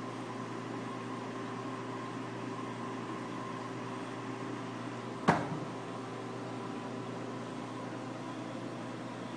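Steady hum of a reef aquarium's running pumps and water circulation, with a few constant tones in it. A single sharp knock comes a little past halfway.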